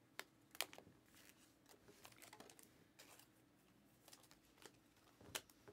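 Faint, irregular clicks and light rustles of glossy Panini Select basketball cards being slid off a stack and flipped by hand.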